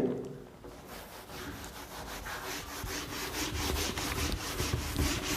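Whiteboard duster wiping a marker diagram off the board: rhythmic back-and-forth rubbing strokes, about two to three a second, starting about two seconds in and growing louder.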